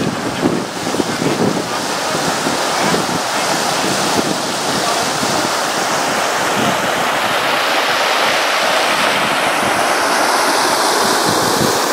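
Steady rush of canal water pouring over a weir and churning below it, with gusts of wind buffeting the microphone.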